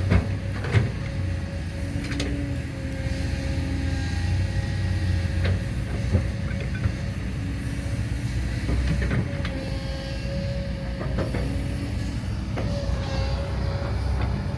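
Small electric motors of radio-controlled construction models (excavator and dump truck) whining steadily, their pitch shifting now and then, with scattered clicks and knocks.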